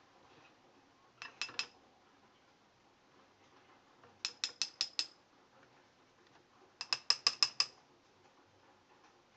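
Three short bursts of small, sharp clicks with a slight ring, each burst a quick run of clicks about six a second, the later two bursts longer and louder.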